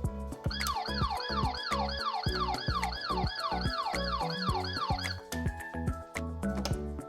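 Electronic siren of a Playtive toy police car: a quick falling-pitch sweep repeated about two and a half times a second, starting about half a second in and stopping about five seconds in. Background music with a steady beat plays throughout.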